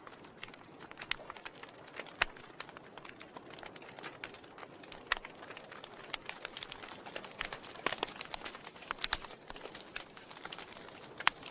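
Wood fire crackling in a fireplace: irregular sharp snaps and pops over a soft steady hiss, with a handful of louder pops scattered through.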